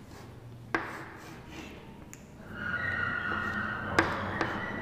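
Chalk on a blackboard while a structure is drawn: a sharp tap under a second in, then from about halfway a steady thin chalk squeak along with a couple more taps.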